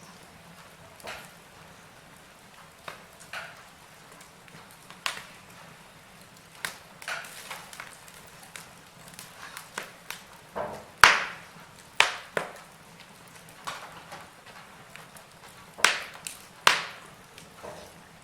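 Wood fire burning in a fireplace: firewood crackling with irregular sharp pops over a faint hiss, several louder cracks in the second half.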